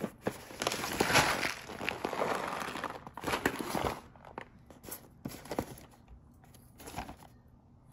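Foil snack pouches crinkling and cardboard snack boxes being handled on a table, with the rustling through the first half, then a few light taps as the packages are set down.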